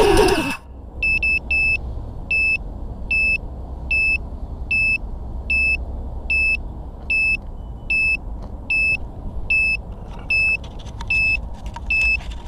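A downed FPV quadcopter's lost-model locator beeper sounding short, high beeps about every two-thirds of a second, a few of them doubled. A low, steady rumble runs underneath.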